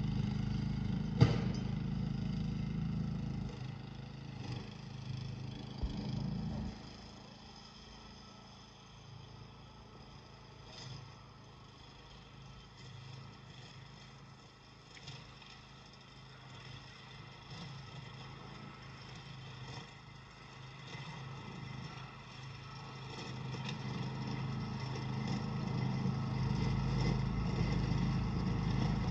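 Walk-behind dethatcher's small engine running steadily, fading to faint as the machine works away across the lawn and growing louder again over the last several seconds as it comes back. A single sharp click about a second in.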